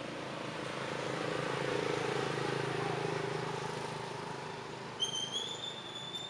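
Motor vehicle engine noise passing by, swelling to a peak and then easing off. A high, thin whistle-like tone starts about five seconds in and holds.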